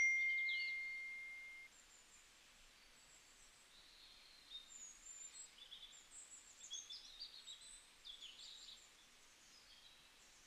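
A single high ringing tone, a ding, dying away over about a second and a half. After it, faint scattered bird chirps run through the rest.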